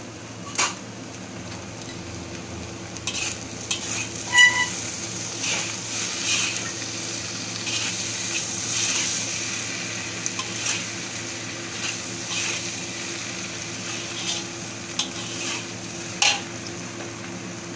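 Fried rice sizzling in a wok while it is stirred and tossed with a spatula, the spatula scraping against the wok with repeated short scrapes and clinks. One sharper metallic clink rings briefly about four seconds in.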